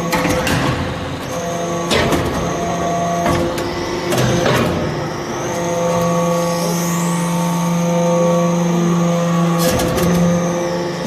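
Metal-chip briquetting press running with a steady mechanical hum, broken by several sharp clunks or hisses as it cycles.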